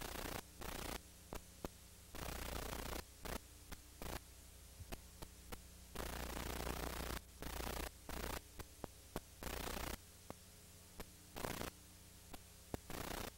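Noise of an old recording: hiss and static cutting in and out every second or so, with a steady mains hum and scattered sharp clicks in the quieter gaps.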